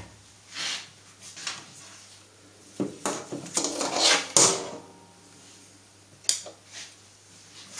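A mains plug is pulled and its cable handled and laid on a metal bench top. A series of short clatters and scrapes, loudest about three to four and a half seconds in, then a sharp click a little after six seconds.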